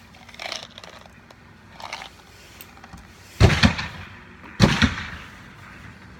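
Two loud gunshots from elsewhere on the range, a little over a second apart, each with a short boom of echo. Before them come two softer clicks from the percussion revolver being handled while it is loaded.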